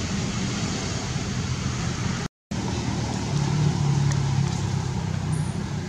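Steady hum of a running vehicle engine, a little louder about halfway through, cutting out completely for a moment about two seconds in.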